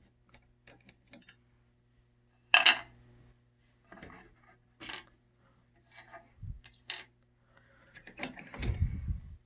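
Sharp metallic clinks and taps from small metal parts and tools being handled while a control panel is taken apart, the loudest about two and a half seconds in, with scattered quieter knocks and a dull thump near the end.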